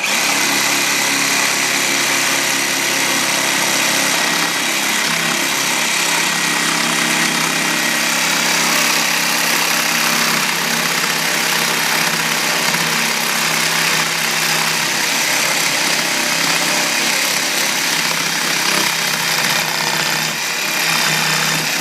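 Electric jigsaw running steadily as its blade cuts into the door to enlarge the lock opening. Its tone shifts slightly about four seconds in.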